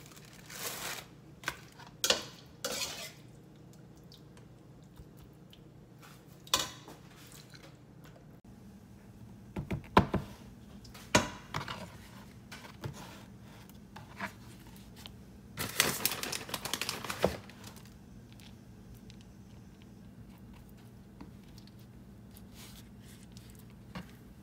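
Kitchen utensils and dishes clinking and scraping in short, scattered bursts, with the longest burst about two-thirds through, over a faint steady hum.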